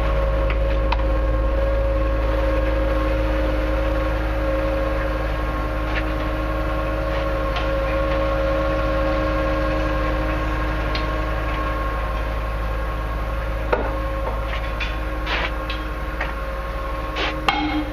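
A steady mechanical hum with a low rumble, holding the same pitch throughout, with a few short clicks and knocks near the end.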